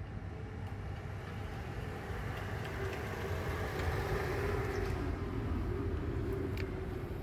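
A road vehicle passing on the street, its engine and tyre noise growing louder to a peak about four seconds in and then fading.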